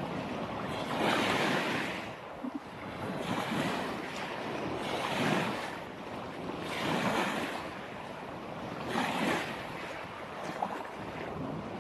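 Surf washing onto the shore, each wash rising and fading, about every two seconds.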